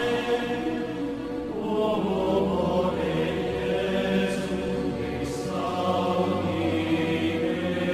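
Swinging church bells of St. George's, Petrovaradin, cast by Nuspicher in 1701 and 1714, ringing: many overlapping bell tones over a steady deep hum, renewed by fresh strokes every second or two.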